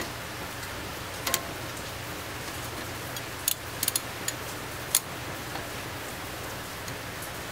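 Heavy rain falling outside the garage, a steady even hiss, with a few sharp clicks scattered through it.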